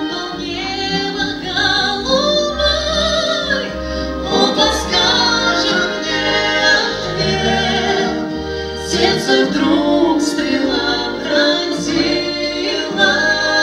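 A man and a woman singing a duet through microphones over instrumental accompaniment, holding long notes in a slow romantic ballad.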